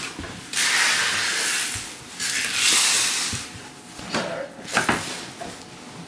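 Small plastic bag of nails being handled: two long rustles of the plastic, then a few light clicks and knocks.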